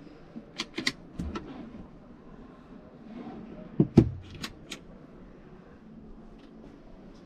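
Overhead cabinet door in a camper van being handled: a run of sharp clicks from its knob catch as it is opened, then a louder knock about four seconds in as a door is shut, followed by two more clicks.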